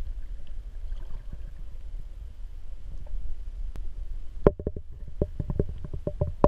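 Muffled underwater sound heard through a GoPro's waterproof housing just below the sea surface: a steady low rumble of moving water. About two thirds of the way through there is a run of short clicks and knocks.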